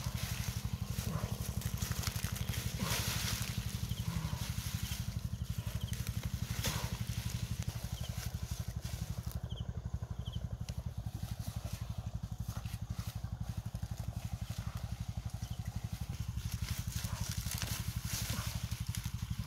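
Crisp lettuce leaves rustling and crackling as whole lettuce plants are pulled up out of the soil by hand. Under it runs a steady, rapidly pulsing low mechanical rumble, like an engine running.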